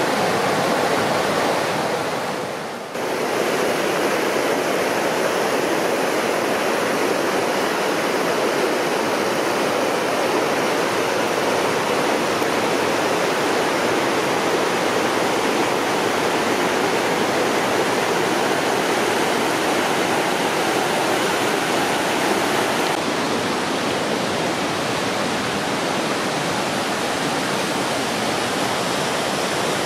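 Rushing water of the Linville River and its falls: a steady, even rush of water over rock. There is a brief drop about three seconds in and a slight change in tone about 23 seconds in.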